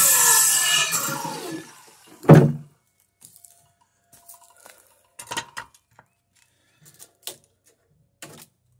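Circular saw finishing a cut through a wooden board, then the trigger is released and the blade winds down with a falling whine, gone by about two seconds in. A loud thunk follows right after, then a few light knocks and clicks.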